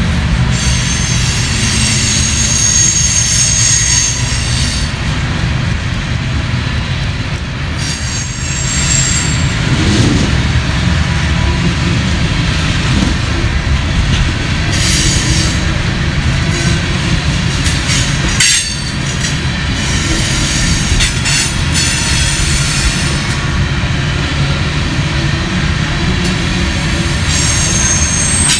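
Freight train of covered hopper cars rolling past close by: a steady rumble of steel wheels on rail with a clatter of wheels over the track, and high wheel squeal coming and going.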